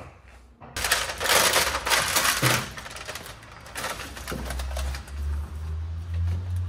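A foil-faced sound-deadening mat being handled and pressed onto a car's bare steel floor pan. Loud crinkling and crackling starts about a second in and lasts nearly two seconds, then shorter rustles follow. In the second half there is a low rumble as the mat is rubbed flat by hand against the floor.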